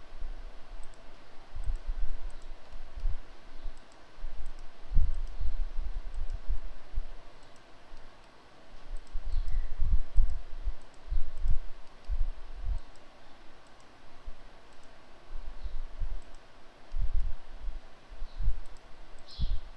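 Computer mouse clicking again and again at irregular intervals, each click heard as a short dull thump, while frames are picked one by one.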